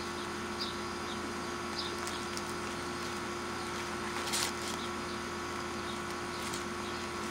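Air-conditioning unit humming steadily, with faint crinkles as fried chicken is handled in its paper box and a brief louder rustle about four seconds in.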